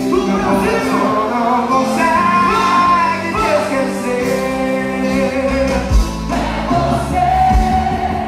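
Quadrilha junina show music: a long-held, sliding sung melody over band accompaniment, with bass drum beats coming in about six seconds in.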